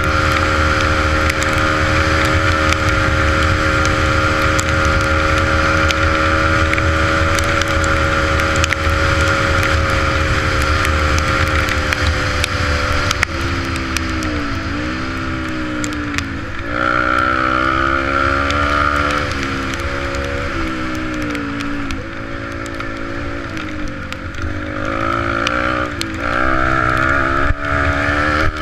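Yamaha 125 dirt bike's engine running at a steady cruise for about the first dozen seconds, then easing off and picking up again several times in the second half as the throttle is rolled off and on.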